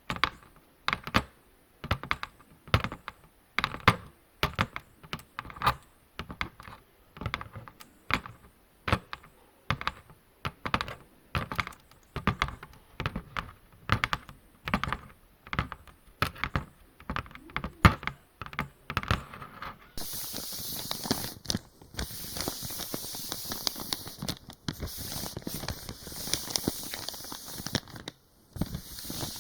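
Rhythmic ASMR ear-massage sounds on a microphone: separate rubbing or patting strokes about once a second. About two-thirds through, they give way to a continuous crinkly crackling.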